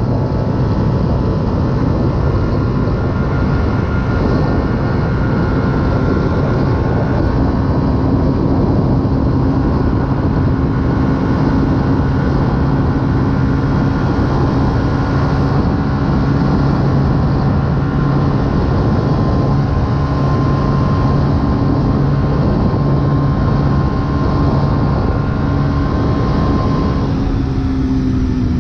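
Yamaha YZF-R125's 125 cc single-cylinder four-stroke engine through a full aftermarket exhaust, cruising at a steady speed and holding an even pitch, with wind rush over the bike. The engine note shifts slightly near the end.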